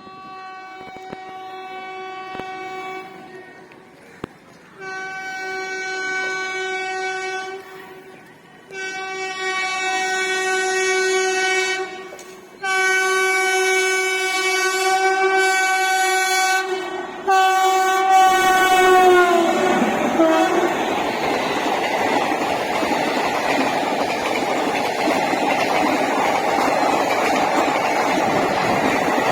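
WAP-7 electric locomotive's horn sounding five long blasts, the last sliding down in pitch as the locomotive passes. Then the train runs by with a steady rush and clatter of wheels on the rails.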